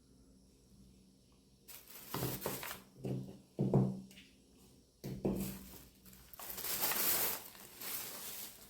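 Tripod and its packaging being handled during unboxing: a few knocks and thuds, then a longer rustle near the end.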